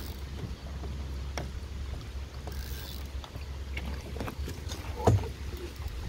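Steady low rumble of wind on the microphone, with light clicks of the spinning rod being handled. About five seconds in comes a single knock as the rod butt drops into a PVC pipe rod holder.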